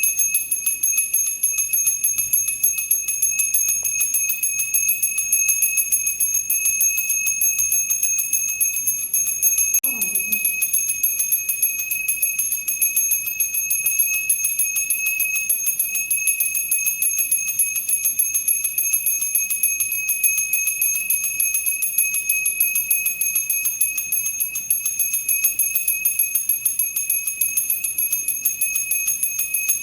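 Temple bell rung over and over in quick, even strokes, its high ringing tones carrying on unbroken between the strikes.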